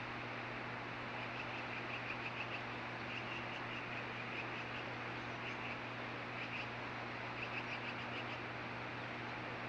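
Juvenile osprey calling in several short bursts of rapid, high chirps. The calls sound over the steady noise of a freight train passing.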